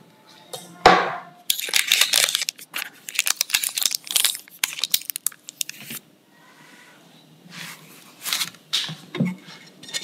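Parchment baking paper being torn away from the rim of a lined round cake pan: a dense run of crackling rips, then lighter paper rustling near the end.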